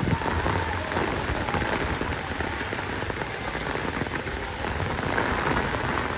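Heavy rain pelting a sheet of standing water on a paved street: a dense, steady patter of countless drops splashing.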